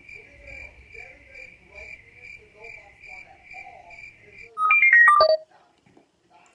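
Electronic ringtone: a high beep pulses about two to three times a second over a faint low buzz for about four and a half seconds. Near the end comes a loud, short jingle of falling notes.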